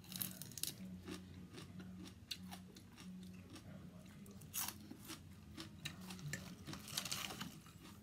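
Close-up crunching and chewing of a raw green vegetable, with the loudest crunchy bites about four and a half seconds in and again about seven seconds in, over a faint low hum.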